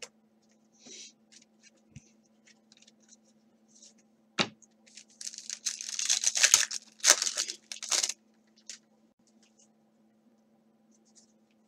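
Foil wrapper of a 2017 Donruss baseball card pack being torn open and crinkled: a sharp click about four seconds in, then about three seconds of crackling tearing. Faint rustling of cards being handled before and after.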